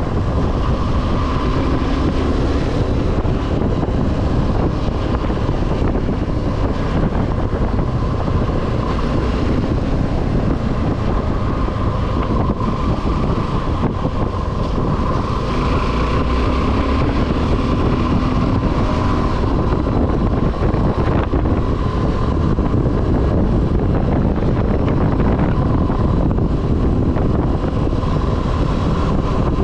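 Suzuki V-Strom 250 SX's single-cylinder engine running while riding, its pitch drifting gently up and down, with wind rushing over the action camera's microphone.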